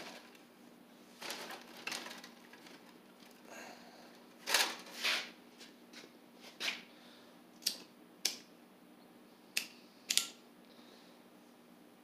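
About nine separate sharp clicks and short scuffs, two of the louder ones close together a little before the middle. They come from handling an old acetylene torch set as its bottle valves are opened and the torch is readied for lighting, over a faint steady hum.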